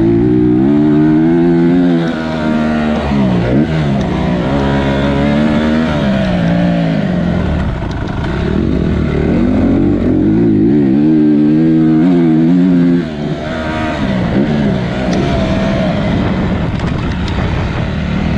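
Motocross bike engine under hard riding on a dirt track, revving up and backing off again and again with the throttle. The pitch rises and falls repeatedly and drops sharply when the throttle is shut about two and thirteen seconds in.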